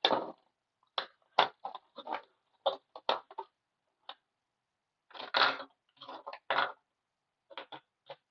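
Plastic clicks, snaps and short scrapes of a Toyota key fob's case being handled and worked apart, coming in irregular clusters with a pause in the middle.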